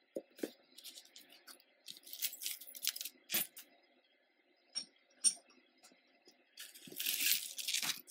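Metal jewelry chains and pendants clinking as hands handle and sort through a pile of necklaces. There are scattered light clicks and a couple of small metallic tings at first, then a steadier jangle near the end.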